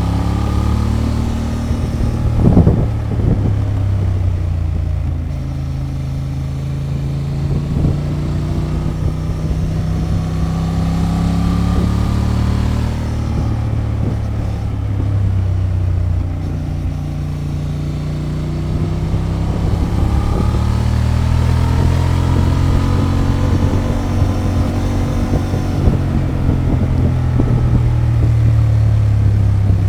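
Honda XL750 Transalp's parallel-twin engine running through its stock exhaust while being ridden. Its pitch rises and falls slowly several times as speed changes, with a short sharp knock about two and a half seconds in.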